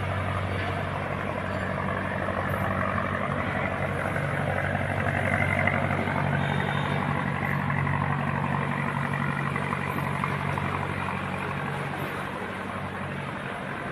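Heavy diesel engine of a river barge running steadily, a low even hum, a little louder around the middle.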